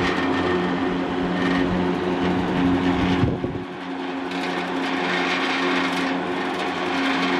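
Panasonic FV-40AFU 16-inch industrial exhaust fan running steadily: a motor hum under a rush of air through its open shutter louvers. About three and a half seconds in the sound dips briefly, and the deep rumble then drops away.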